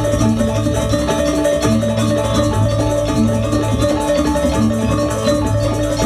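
Gamelan ensemble playing Janger accompaniment: bronze metallophones ring steady notes over a low held tone that comes back every second or two.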